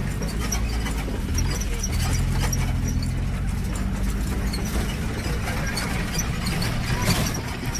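Off-road jeep riding over a rough, rocky track: the engine running steadily under a constant noise of the ride, with many small rattles and knocks from the body.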